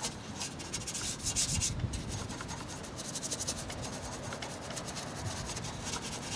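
Soft-bristled long-reach detailing brush with an angled head, scrubbing foamy all-purpose cleaner over metal engine-bay parts in quick, irregular back-and-forth strokes. The scrubbing is loudest a second or two in.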